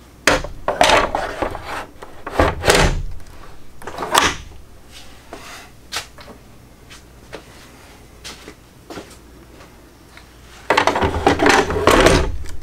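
Plastic parts of a Bissell carpet cleaner being handled: a series of irregular clunks and knocks, then a denser stretch of rattling near the end.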